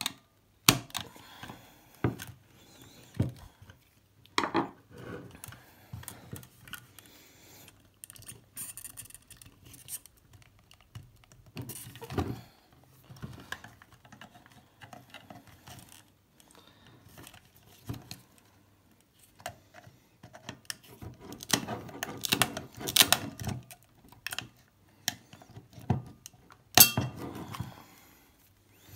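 Metal screwdriver prying and scraping inside a hard plastic BottleLox bottle security cap: irregular clicks, scrapes and knocks. There is a dense flurry of clicking a little after the middle and one sharp loud click near the end.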